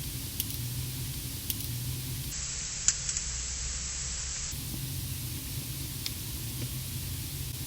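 A handful of sharp, isolated clicks and crackles inside a car, the loudest about three seconds in, over a steady hiss and low hum. The uploader hears such clicks from the dashboard and from a mylar blanket in the front window, and takes them for signs of a directed-energy attack.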